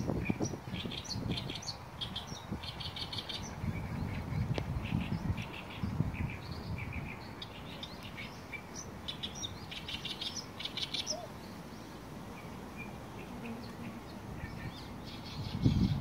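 Small birds chirping and twittering over and over in short, high bursts, with gusts of wind buffeting the microphone now and then.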